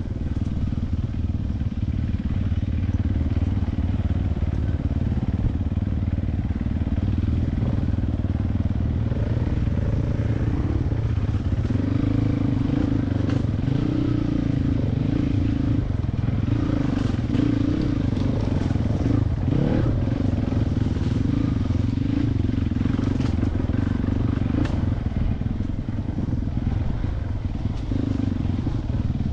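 Four-stroke single-cylinder enduro dirt bike engine ridden along a rough trail, its note rising and falling as the throttle is worked, with the chassis clattering and knocking over the bumps. A second 450 enduro bike is riding just ahead.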